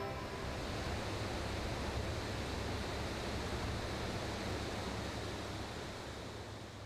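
Steady, even hiss of background noise with a low rumble under it, no music or voice, fading slowly near the end.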